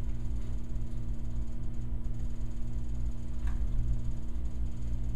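Room tone: a steady low hum with a few faint tones held over it, and one faint click about three and a half seconds in.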